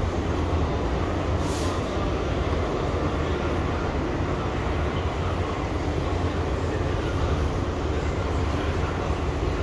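Steady low rumbling drone of body-shop background noise, with a brief hiss about a second and a half in.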